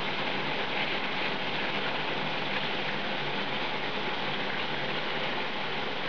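Water spraying steadily from a Peerless 2-in-1 handheld shower head, its many jets splashing onto the bathtub wall.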